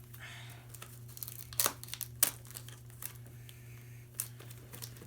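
Packaging being unwrapped by hand: crinkling and tearing, with several short sharp crackles.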